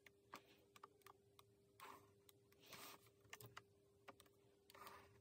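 Near silence, with faint scratches of a pencil drawing short strokes along a ruler, about two and three seconds in, and a few soft clicks of the ruler on the drawing board.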